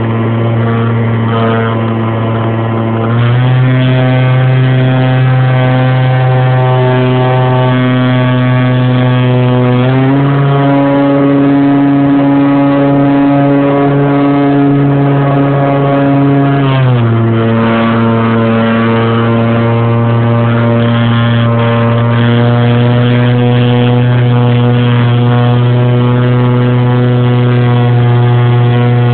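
Electric motor and propeller of a radio-controlled Cessna 182 model plane heard from a phone mounted on its side: a loud, steady droning whine that steps up in pitch about three seconds in, steps up again about ten seconds in, and drops back down around seventeen seconds in as the throttle is changed.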